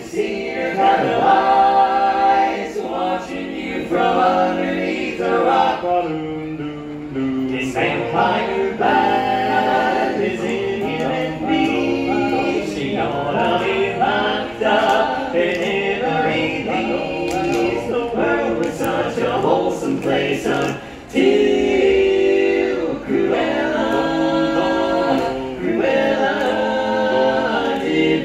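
Male barbershop quartet singing a cappella in close four-part harmony.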